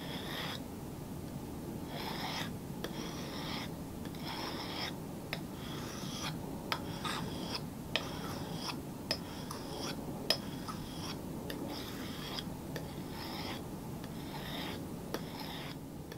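A forged spring-steel knife blade being sharpened on a flat sharpening stone: a run of short scraping strokes of steel across the stone, each about half a second long, with a few light clicks in between.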